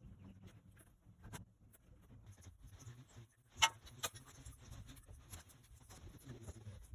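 Faint scattered clicks and knocks over a low rumble, with one sharper click about halfway through.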